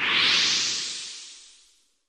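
A whooshing sound effect: a burst of hiss that swells up quickly and then fades away smoothly over about two seconds.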